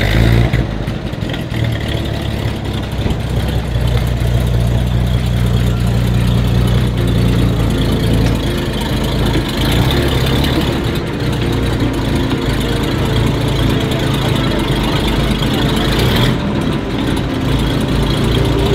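An engine idling steadily, a low even drone with no revving.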